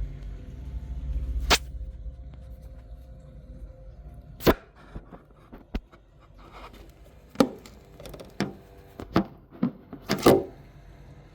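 Irregular sharp knocks or taps, about eight of them, spaced unevenly, with a low rumble fading out in the first couple of seconds.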